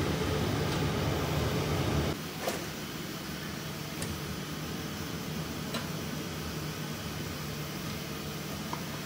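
Steady hum of a biosafety cabinet's blower fan that drops to a quieter background hum about two seconds in, followed by a few light clicks from an incubator's door latch being worked.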